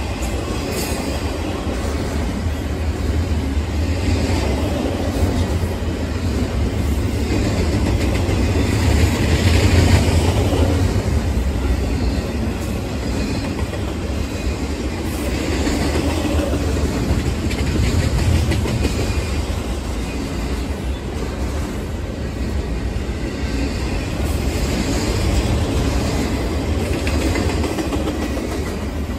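Double-stack intermodal container freight train rolling past: a continuous rumble and clatter of steel wheels on the rails, swelling to its loudest about ten seconds in.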